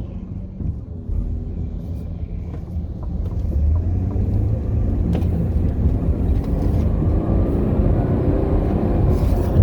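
2008 Dodge Grand Caravan driving, with a low rumble and a grinding whine that rises in pitch and grows louder as the van gathers speed. The owner wonders whether the grinding comes from the differential bearings in the transmission.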